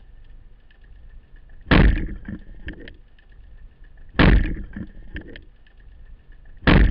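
Three sudden loud splashes of water, evenly about two and a half seconds apart, each dying away over half a second, over a low steady water rumble.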